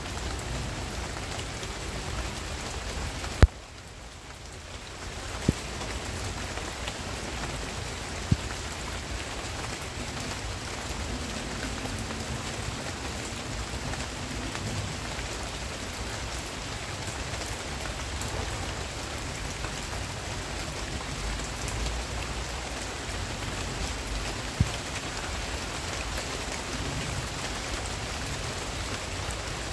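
Steady rain falling on palm fronds and garden foliage, an even hiss of drops. There are a few sharp clicks, the first about three seconds in, and just after it the rain briefly sounds softer.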